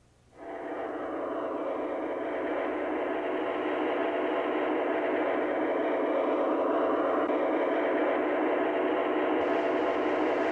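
Lionel model Burlington Northern GP20 diesel locomotive running along the track: a steady running noise from its motor and wheels on the rails, starting about half a second in.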